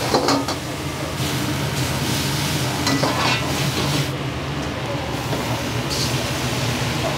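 Food sizzling as it is stir-fried in a wok over a gas burner, with a metal ladle knocking and scraping against the wok a few times.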